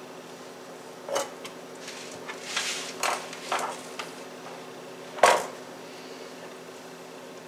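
Kitchen handling sounds: a flexible plastic cutting mat and utensils knocking and scraping on the countertop as shredded cheese is gathered up. A few light clatters, then one sharper knock about five seconds in.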